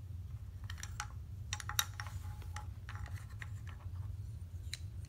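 Small wooden figures and pieces of a wooden Noah's ark set clicking and knocking lightly against each other and the ark as hands move them, in scattered taps with the loudest about two seconds in. A steady low hum runs underneath.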